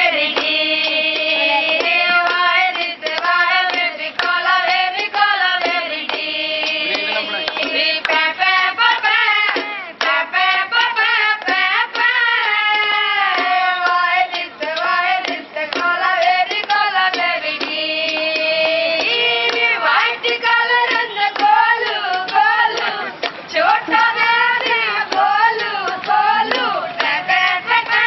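Women's voices singing a song unaccompanied, with hand clapping keeping time throughout.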